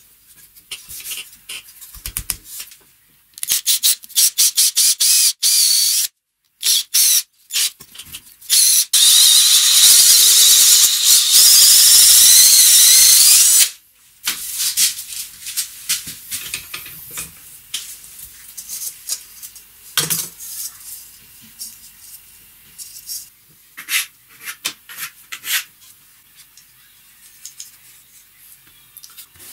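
Electric drill boring a hole into a wooden block: several short bursts, then a steady run of about five seconds with a wavering whine as the bit cuts, stopping abruptly. Afterwards come scattered light taps and rustles of handling.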